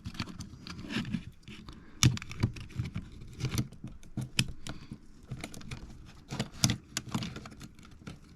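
Irregular small clicks, taps and scrapes of hands working the parts of an opened tape measure, its plastic case and lock mechanism, with a sharper click about two seconds in and another about two thirds of the way through.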